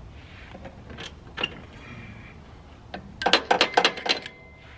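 Hand ratchet wrench clicking as a bolt on an ATV engine is turned: a few single clicks, then a quick run of about ten clicks about three seconds in.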